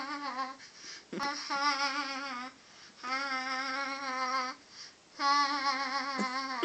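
A toddler's voice holding a long note at a steady pitch three times, each about a second and a half long, with a slight wobble in pitch.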